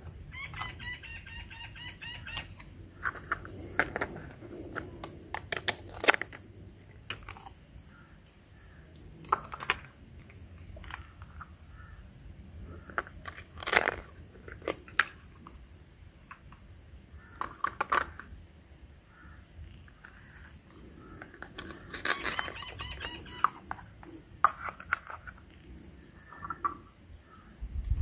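Plastic toy knife and toy food pieces clicking and tapping against a plastic cutting board, in scattered sharp taps. A chicken calls twice in the background, once near the start and once late on, and small birds chirp faintly.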